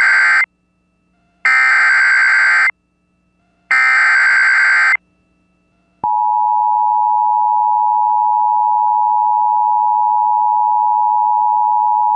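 Emergency Alert System SAME header: the end of one burst of screechy digital data, then two more, each about a second long with a second's gap between them. About six seconds in, the steady electronic attention tone starts and holds, signalling an incoming severe thunderstorm warning.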